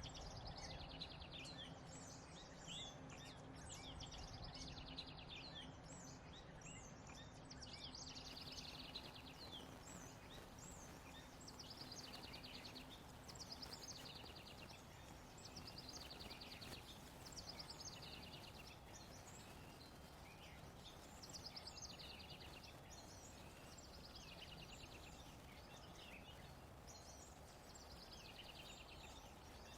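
A songbird singing faintly: short high phrases, many ending in a rapid trill, repeated every few seconds over steady low background noise.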